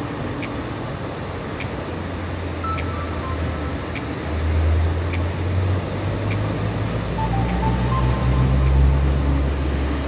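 Ocean surf: a steady wash of breaking waves, with a deep rumble that swells from about two seconds in and grows louder toward the end.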